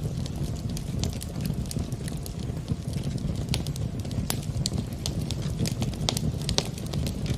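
Wood fire in a fireplace burning with a low steady rumble and frequent sharp, irregular crackles and pops.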